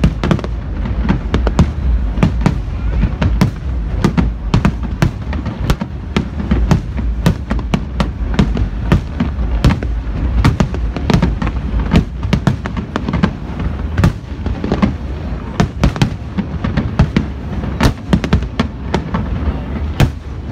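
Fireworks display: a dense, continuous barrage of bangs and booms from bursting aerial shells, several a second, over a steady low rumble.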